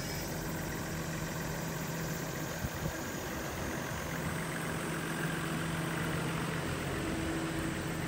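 Toyota Coaster bus's 1HZ 4.2-litre straight-six diesel engine idling steadily.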